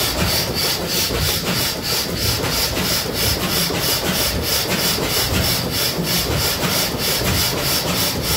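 Turner Fricke large four-cylinder stationary gas engine, with 13 x 13 inch cylinders, running steadily with a fast, even beat.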